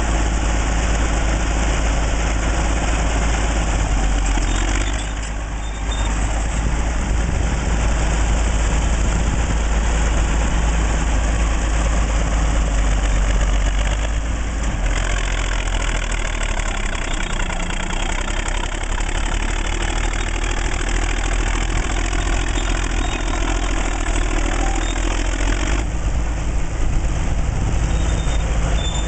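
1940s Caterpillar D8 bulldozer's diesel engine running steadily with a deep rumble, its sound dipping briefly a few times.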